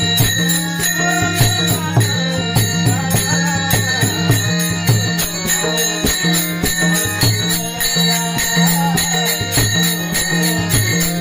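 Warkari bhajan music: small hand cymbals (taal) jingle in a steady beat over a sustained harmonium drone, with a melody line weaving above and low drum strokes.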